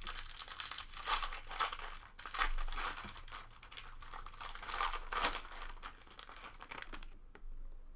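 Foil trading-card pack wrapper being torn open and crumpled by hand, with irregular crinkling and tearing that dies down near the end.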